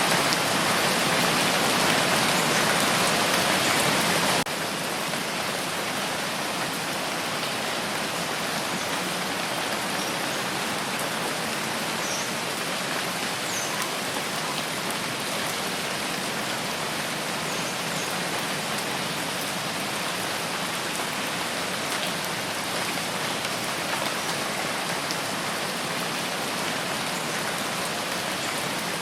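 Steady rain falling, an even hiss of drops. It is louder for the first few seconds, then drops suddenly to a softer, steady level about four and a half seconds in.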